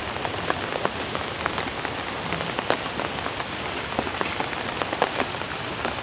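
Steady rain falling, with many sharp drop ticks close by scattered through it.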